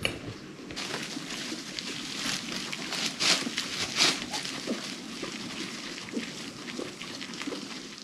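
Dry hay rustling and crackling as guinea pigs burrow and move about in a heaped pile of it, with louder crackles about three and four seconds in.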